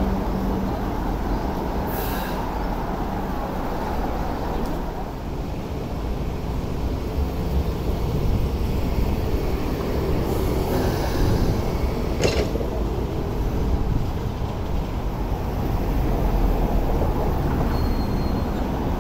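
Hong Kong MTR Light Rail trains on the track: a steady rumble of motors and steel wheels on rail as a two-car light rail train runs in past the platform. There is a click about two seconds in, a sharp knock about two-thirds of the way through, and a brief high squeal near the end.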